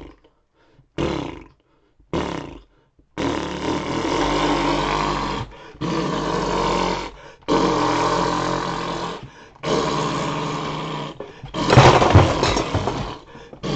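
A man's vocal imitation of a chainsaw: a few short pull-start sounds, then a sustained buzzing engine sound broken by brief pauses every couple of seconds, at its loudest near the end.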